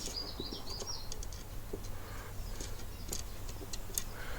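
A small songbird sings a quick, warbling run of high notes in the first second, with scattered faint clicks after it.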